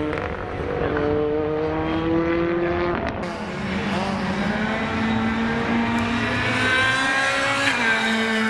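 Ford Fiesta rally car engines accelerating hard, one car and then another. Each engine note climbs steadily in pitch, and there is a short drop at a gear change near the end.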